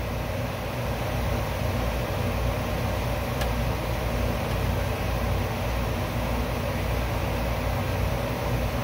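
Steady machine hum with hiss, even in level throughout, and a faint click about three and a half seconds in.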